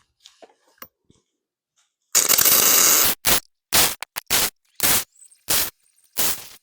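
Arc welding crackle: one burst of about a second, then a quick run of short bursts, like a string of tack welds on the steel plate and bolt.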